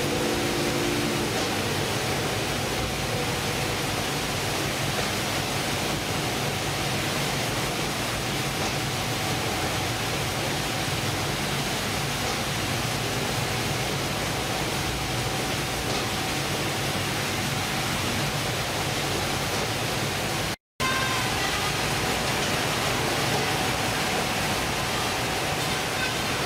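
Steady din of fish-processing machinery running on a ship's factory deck: conveyors and processing machines, with a faint steady hum. The sound cuts out for a split second about two-thirds of the way through.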